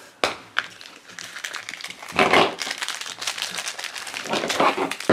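Two sharp clicks of a plastic toy capsule snapping open, then a foil blind-bag wrapper crinkling and crackling as it is handled and torn open, in bursts.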